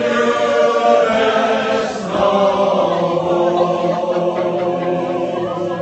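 A crowd of people singing together in long held notes, many voices at once.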